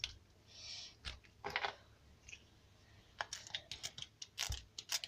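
A perfume spray bottle gives a short hiss a little under a second in, followed by a run of small sharp clicks and taps, more frequent in the last two seconds.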